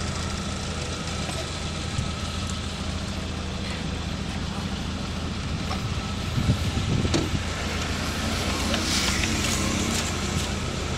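Motor vehicle engine idling with a steady low hum, with a louder hiss about nine seconds in.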